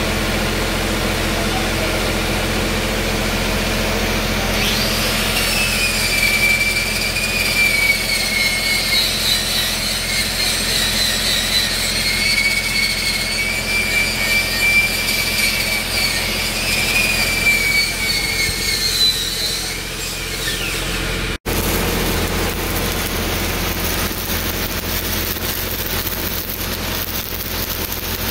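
An engine runs steadily throughout. A high whine comes in about five seconds in and winds down around twenty seconds. After an abrupt cut, a stick-welding arc crackles and hisses on a steel pipe joint over the engine hum.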